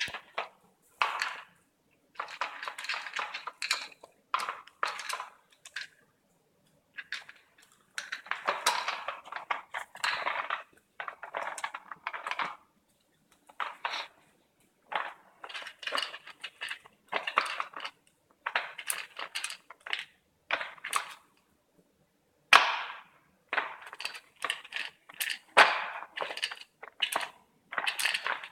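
A dog working a Nina Ottosson Dog Tornado, a plastic puzzle toy: its stacked plastic layers clatter and click as they are nosed round in irregular bursts, with dry kibble rattling and crunching as the dog gets at the food.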